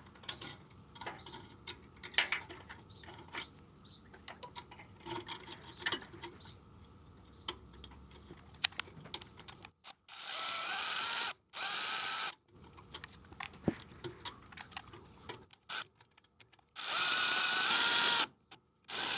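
A power drill runs in four short bursts of one to two seconds each, driving hardware for a fire extinguisher mount. Before the bursts there are small clicks and knocks of parts being handled.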